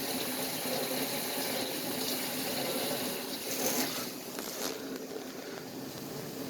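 Bosch Ecosense dishwasher running its wash cycle, a steady slithering, splashing water noise with a brief louder splash a little under four seconds in. The weird noise is put down to the door not being latched fully on one side.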